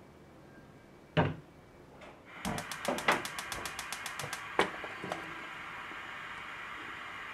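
A single knock about a second in, then a gas stove's igniter clicking rapidly, about ten clicks a second for some two seconds, as the burner lights under a frying pan; the burner's flame then hisses steadily.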